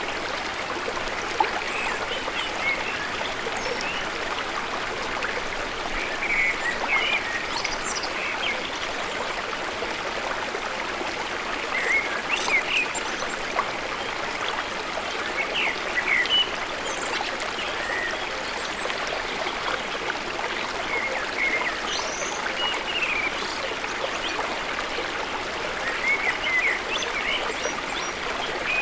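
A steady rushing hiss, like running water or distant traffic, with many small birds chirping briefly over it throughout.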